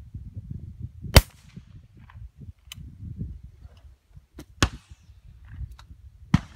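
Shotgun shots fired at flying ducks: three loud sharp reports, about a second in, past the middle and near the end, each with a short echo, and a few fainter distant shots between them.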